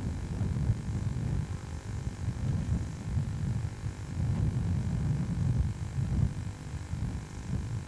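Wind buffeting the camcorder microphone: a low, uneven rumble.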